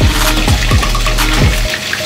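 Background music with a heavy bass beat: deep bass-drum hits that drop in pitch, about one every 0.6 seconds, over steady bass notes and light high ticks.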